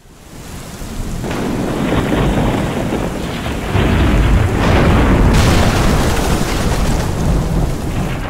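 Thunderstorm sound effect: steady heavy rain with deep rolling thunder. It fades in over the first second or so, and the thunder is loudest through the middle.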